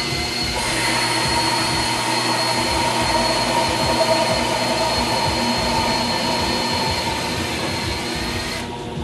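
Homemade concrete-bed metal lathe taking a turning cut. The spindle motor runs with a steady whine. The cut, with a drill driving the carriage feed, adds a louder hiss that starts about half a second in and stops near the end.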